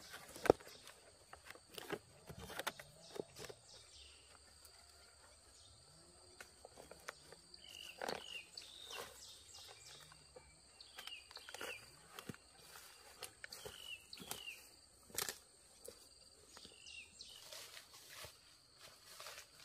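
Faint outdoor ambience: scattered knocks and rustles like footsteps, with a few short falling chirps now and then.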